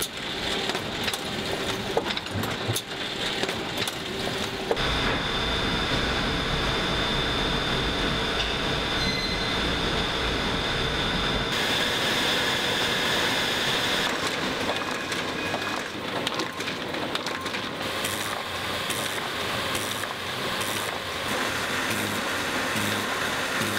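Paper-handling printing and finishing machines running, feeding and moving printed sheets with a steady mechanical clatter. The sound changes character abruptly several times as different machines are heard, with fine, fast ticking in the last few seconds.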